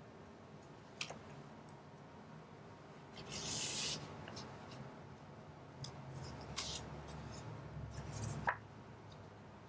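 Stiff paper index cards being handled and sorted on a wooden table: a small tap about a second in, a longer papery rub of card sliding on card a little after three seconds, then several light clicks and taps, the sharpest near the end.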